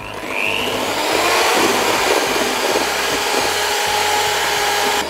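Electric hand mixer running, its beaters whisking egg whites in a stainless steel bowl. It gets louder over the first second, then runs steadily.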